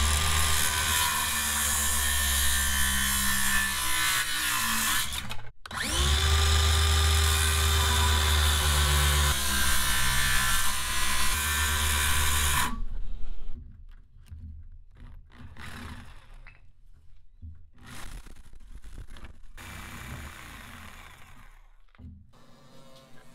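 DeWalt 20V cordless circular saw cutting through old reclaimed boards in two cuts. The first lasts about five seconds; after a short break the motor spins up again for a second cut of about seven seconds. After that only quieter knocks and scrapes of the boards being handled.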